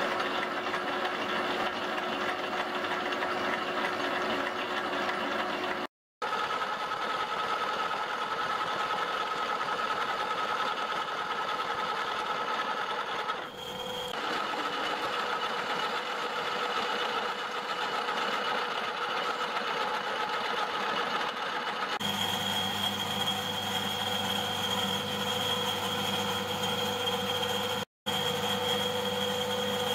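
Metal lathe running, a cutting tool turning down a steel axle bar to form the wheel journal; a steady machine hum whose tone changes about two-thirds of the way in, with two very short dropouts.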